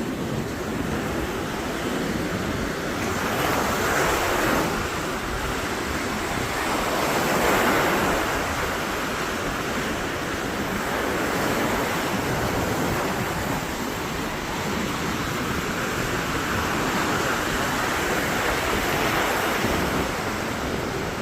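Surf breaking on a sandy beach, the waves swelling and washing in about every four seconds.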